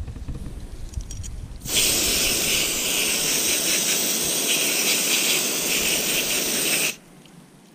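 Pistol-grip garden hose spray nozzle hissing as it sprays water over a small piece of raw bird breast held in a gloved hand. The spray starts suddenly about two seconds in and cuts off sharply about five seconds later.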